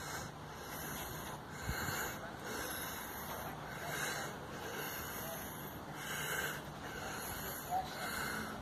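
Footsteps of someone walking at an even pace, about two steps a second, with soft scuffing on each step over faint outdoor background noise.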